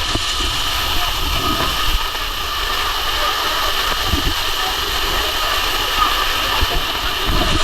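Waterfall: a steady, close rush of falling water, with a few low rumbles.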